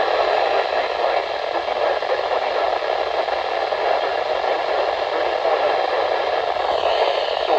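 Steady radio static hiss from a weather radio on a weather station whose signal is too weak to come through clearly.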